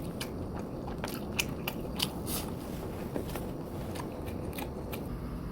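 A person eating close to the microphone: chewing and mouth sounds with many short clicks scattered through, thickest in the first half.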